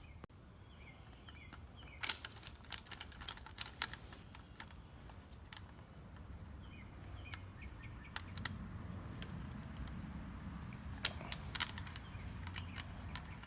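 Scattered light clicks and taps of small metal hardware being handled: hex nuts and a nylon-insert lock nut being threaded onto a metal J-hook.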